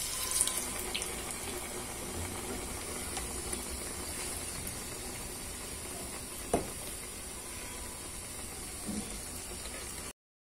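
A medu vada (urad dal batter ring) deep-frying in hot oil in a kadai: a steady sizzle as the batter goes into the oil and keeps bubbling. There is a single sharp click about six and a half seconds in.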